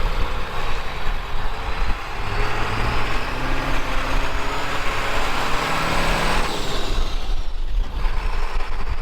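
A truck driving past, its engine running loudest around the middle and fading after about seven seconds.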